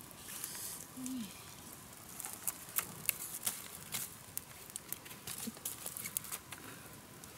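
Open wood-and-bamboo campfire crackling, with many sharp irregular pops and snaps, busiest in the middle seconds, as sticks are poked into the flames.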